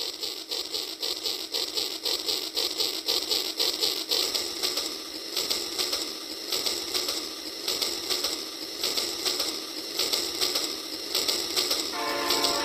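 Battery-powered toy steam locomotive's motor and gears running with a rapid, rhythmic clicking whir that grows louder as the train approaches. Near the end a string of electronic tones begins.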